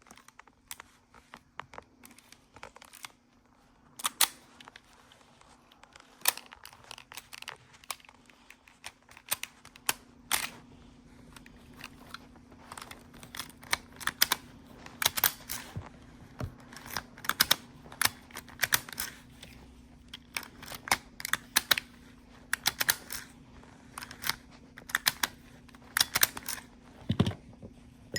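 Irregular small clicks and taps of an Acura/Honda ignition lock and its housing being handled and worked on at the bench, with a faint steady low hum underneath.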